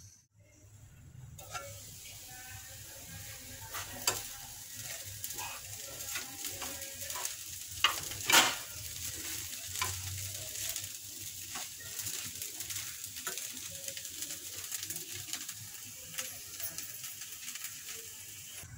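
Sabudana khichdi (tapioca pearls and potato) sizzling in a nonstick pan while a steel spoon stirs it, the spoon scraping and clinking against the pan. The sizzle starts after a moment's silence, and the two loudest clinks come a little before halfway.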